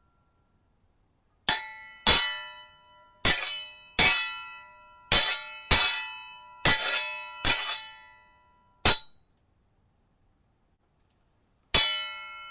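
Steel sword blades clashing, a series of sharp ringing clangs, mostly in quick pairs, each ring dying away within about a second. After a silent opening there are nine strikes over about seven seconds, then a pause and one more clang near the end.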